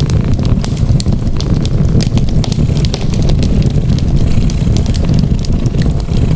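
Wood fire crackling with frequent sharp pops and snaps over a steady, low, rumbling cat purr.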